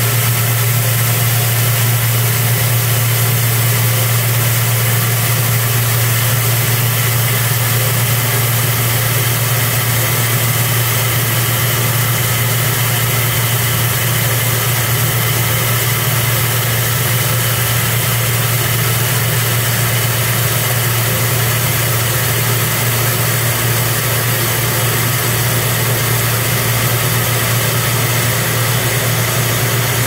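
Rice-polishing machine running with a steady low hum, polished white rice pouring continuously from its chute into the stainless-steel outlet hopper with a constant dense hiss.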